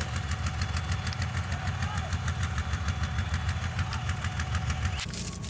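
Heavy diesel engine of an armoured tracked vehicle running, a low, rapid, even throb. It breaks off suddenly near the end.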